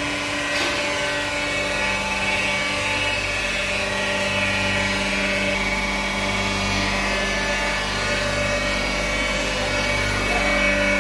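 Transformer oil filtration machine running: its electric vacuum pump and inlet and outlet oil pumps give a steady drone with a low hum.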